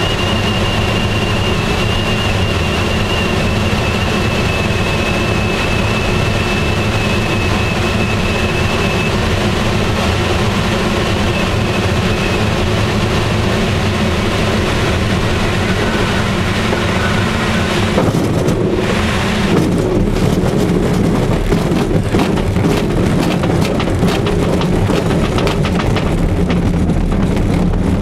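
Airflow rushing over the canopy of a Swift aerobatic glider low on approach, with a faint high steady whistle for the first nine seconds or so. About eighteen seconds in the glider is on the ground, and the sound turns into a rumble and rattling of the wheel and airframe rolling over the ground.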